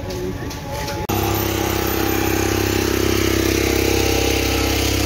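Vehicle engines idling in a street traffic jam, a steady hum. It starts abruptly about a second in, replacing a quieter stretch where a distant call to prayer wavers over street noise.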